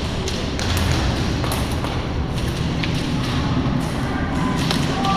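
Airsoft guns firing in scattered, irregular sharp cracks, with thuds of BBs and gear over a low rumble of movement.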